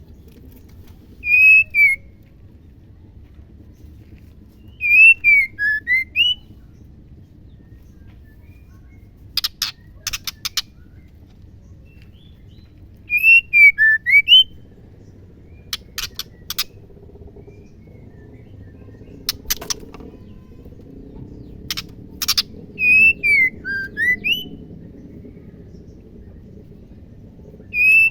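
Female white-rumped shama calling: short whistled phrases, each a few swooping notes, repeated every few seconds, with sharp clicks between the phrases.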